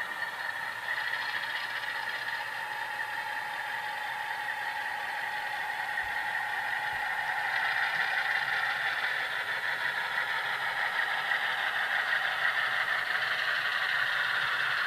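HO-scale ALCo diesel locomotive's sound decoder playing its prime-mover sound through the model's small onboard speaker, running steadily and growing louder as the locomotive comes closer.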